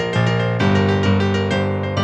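Piano or keyboard playing chords at an even, unhurried pace.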